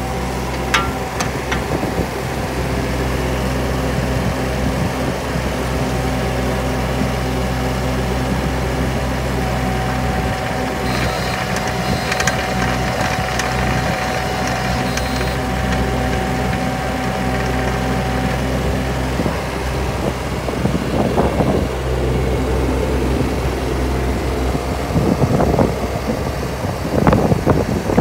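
JCB 18Z-1 mini excavator's diesel engine idling steadily, with a thin steady whine that stops about two-thirds of the way through. Uneven rushing noise comes and goes over the last several seconds.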